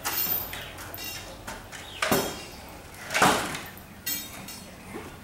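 Wooden stepladder being shifted and set down on a concrete floor: a few separate knocks and scrapes, the loudest a little past three seconds in.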